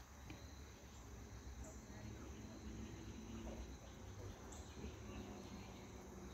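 Insects chirring faintly and steadily, a high even tone, over a low rumble.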